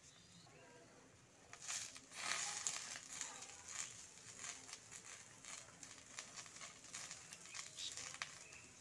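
Fresh fenugreek leaves dropped in handfuls into a kadai of brinjal frying in mustard oil, rustling and crackling. The crackling starts about a second and a half in.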